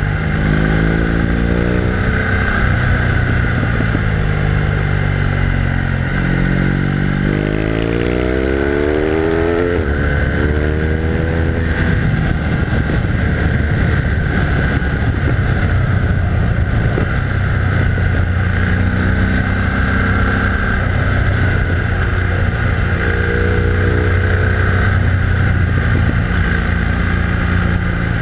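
BMW R1200R LC's liquid-cooled boxer-twin engine under way on a winding road. The revs fall off near the start, climb steeply under acceleration from about six seconds in, drop suddenly at an upshift near ten seconds, then run fairly steady.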